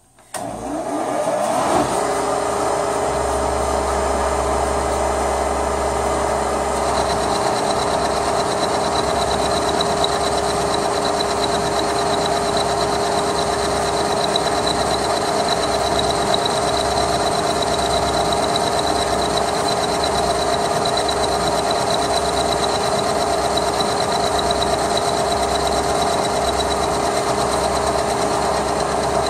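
Vertical milling machine's spindle starting up and then running steadily in low range while an end mill cuts a flat onto a steel hydraulic fitting. The pitch rises as the spindle comes up to speed, and a high whine joins in about seven seconds in.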